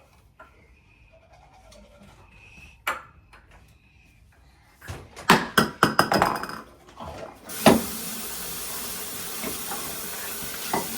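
A quick run of clattering knocks for about two seconds, then a single thump, followed by a steady hiss.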